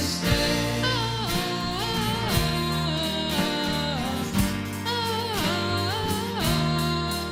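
A worship band playing a contemporary Christmas song in an instrumental passage, with a drum beat and bass under a lead melody line that slides between notes.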